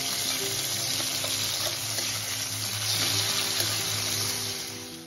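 Tomato pieces, bay leaf and cumin seeds sizzling steadily in hot mustard oil in a steel kadai as a steel spatula stirs them. The sizzle fades near the end.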